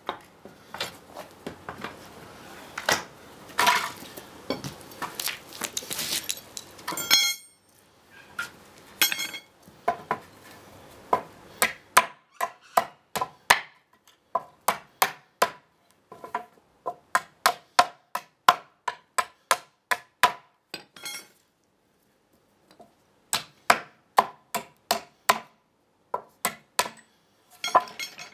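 Claw hammer striking a pallet base board and its nails in fast runs of sharp blows, with a pause of about two seconds partway through, knocking an EPAL spacer block loose. Before the blows, for several seconds, wood creaks and scrapes as the boards are worked apart, ending in a short metallic ring.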